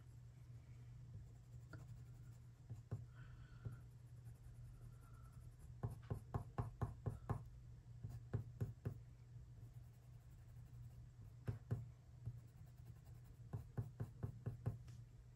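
Colored pencil flicking short strokes on watercolor paper: runs of quick light ticks, about five a second, coming in bursts around six seconds in, near twelve seconds and toward the end, over a faint steady low hum.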